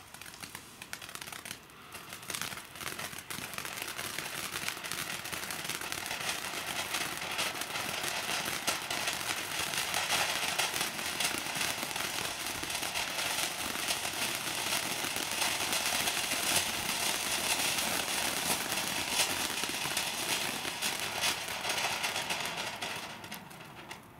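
Dominator Fireworks ground fountain burning: a steady rushing hiss of sparks thick with small crackles. It builds over the first few seconds, holds through the middle, and dies away near the end as the fountain burns out.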